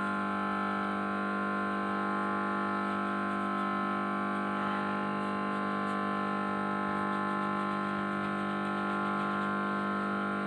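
Steady electrical hum with a buzzy, many-toned drone that holds at one pitch without change.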